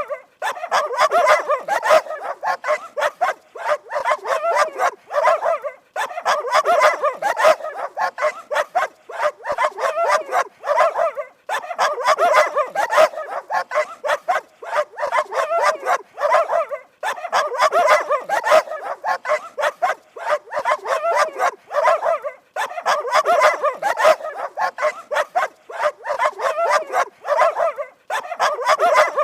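Dogs barking fast and repeatedly, in bursts about five seconds long, each broken by a short pause.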